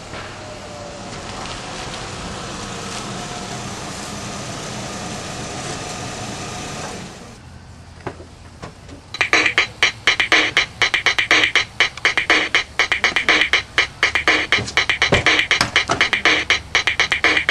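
A vehicle running steadily for about seven seconds, then dying away. About nine seconds in, loud electronic music with a fast, punchy drum-machine beat starts and carries on.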